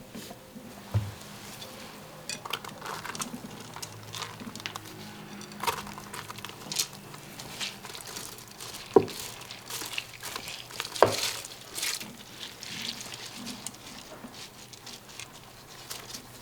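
Kitchen work sounds: scattered clinks, taps and knocks of utensils against dishes and pans, with soft scraping and rustling in between. The sharpest knocks come about a second in and twice more in the second half.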